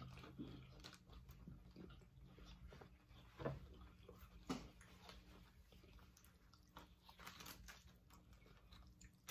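Hard-shell tacos being bitten and chewed: quiet crunching and chewing, with two louder crunches about a second apart some three and a half seconds in.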